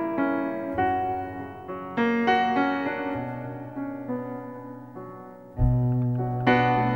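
Background music: piano chords struck one after another, each left to fade, with a deep bass note coming in about five and a half seconds in.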